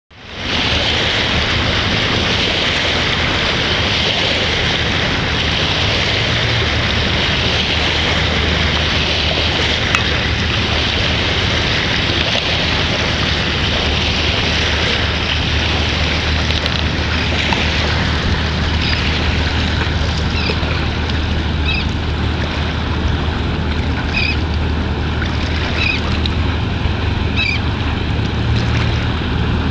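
Boat engine running steadily with a low hum, under heavy wind and water noise on the microphone. Short high chirps sound about half a dozen times in the second half.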